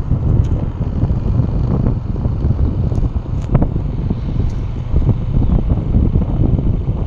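Wind buffeting the microphone of a camera on a moving motorbike, over a low, steady rumble from the ride.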